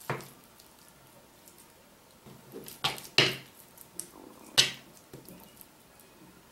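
Metal spoon clinking and scraping against a plate as salad is spooned out and spread. There are a few sharp taps, the loudest about three seconds in and again about a second and a half later.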